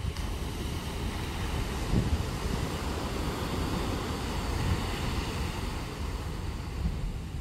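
Wind buffeting the microphone over a steady wash of sea waves. There are a few louder gusts, the strongest about two seconds in.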